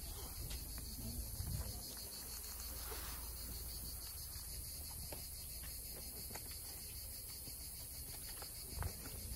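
Steady, high-pitched chorus of insects, with a fine pulsing texture, over a low rumble and a few soft bumps.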